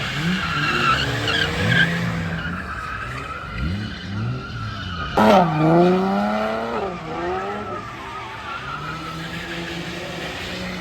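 Drift cars' engines revving up and down with tyres squealing as the cars slide. About five seconds in, a car close by revs hard, the loudest moment, its note dipping and then climbing again.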